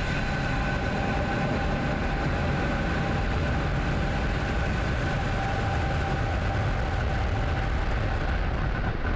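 A SpaceX Falcon 9 first stage's nine Merlin engines at full thrust during liftoff, a steady deep rumble that holds at an even level as the rocket climbs away.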